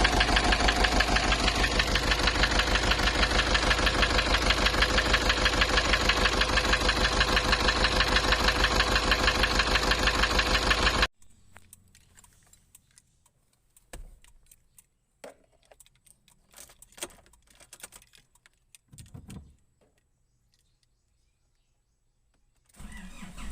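Nissan Urvan's ZD30 four-cylinder diesel engine running at idle with a steady, even beat, cut off abruptly about eleven seconds in. Faint scattered clicks and knocks follow, and the engine is heard again at the very end.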